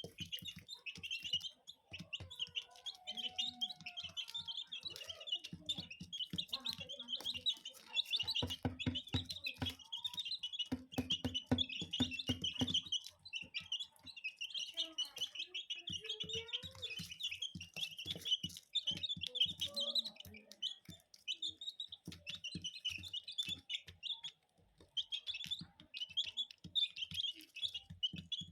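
Chicks peeping constantly in high, dense chirps while feeding, with many quick sharp taps of pecking beaks, thickest about a third of the way through.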